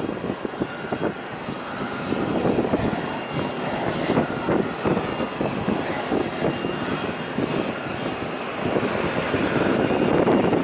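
Jet engines of a Boeing 767-400 airliner on its takeoff roll: a loud, continuous rumble with a ragged crackle and a faint steady whine, growing louder near the end as the aircraft draws level.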